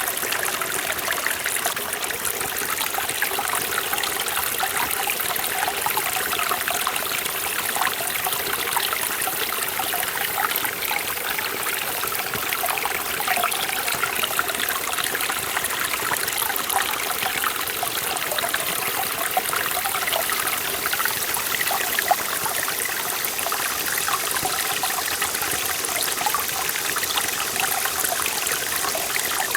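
Forest valley stream running and splashing over rocks, a steady bright rushing with constant small gurgles and splashes.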